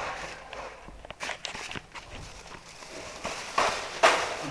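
Wire birdcage being handled and lifted down from its rack: scattered light clicks and rattles of the metal wire, with two louder knocks near the end.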